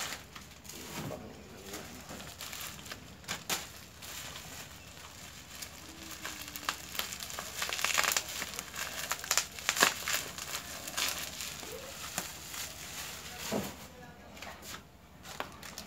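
Plastic parts packaging crinkling as it is handled, with irregular crackles and sharp clicks.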